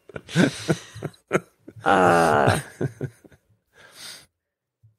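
Men's wordless vocal sounds: short vocal noises and breaths, then a drawn-out voiced sound lasting under a second, and a breath about four seconds in before the sound drops out.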